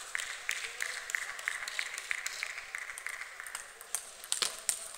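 Table tennis balls clicking and pinging in a steady run of light bounces. About three and a half seconds in, a rally starts, with sharper clicks of bat strikes and table bounces.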